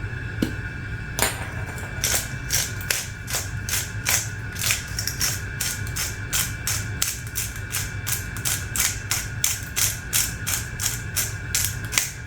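Pepper mill being turned to grind black pepper: a steady run of sharp ratcheting clicks, about three a second, starting about a second in.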